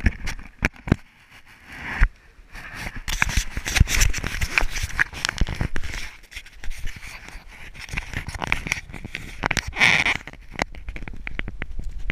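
Handling noise from an action camera being fiddled with and adjusted by hand: irregular rubbing, scraping and clicking right against the microphone.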